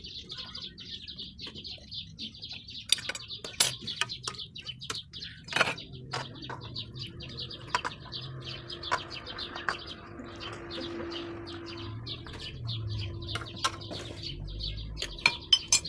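A knife and fork carving a roast chicken, clinking sharply and irregularly against the metal pan, tray and china plates as pieces are served. Birds chirp rapidly and continuously underneath.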